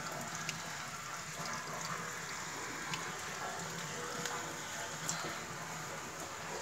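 Steady rush of water spilling over from a rooftop water tank, with a few faint clicks.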